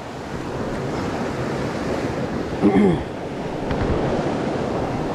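Steady rush of running water in a mountain creek, with one short vocal sound from a person a little past halfway.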